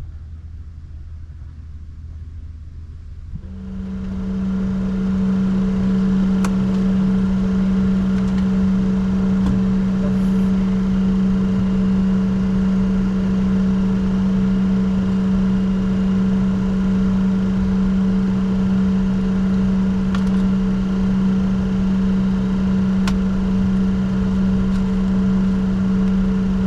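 A steady machine hum with rushing air inside a business jet's cockpit. It comes on suddenly about three and a half seconds in and then holds level, with a few faint clicks.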